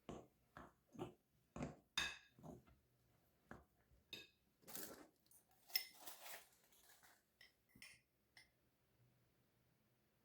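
Kitchen dishes and utensils being handled: a run of light knocks and clinks, some ringing briefly. They stop about eight and a half seconds in.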